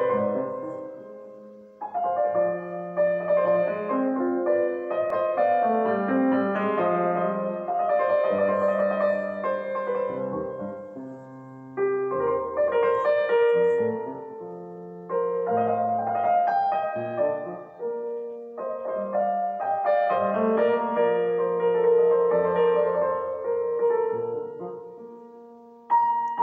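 Solo piano music played back over a pair of bookshelf speakers driven by Odyssey Kismet mono block power amplifiers. The piece moves in phrases that die away and start again several times.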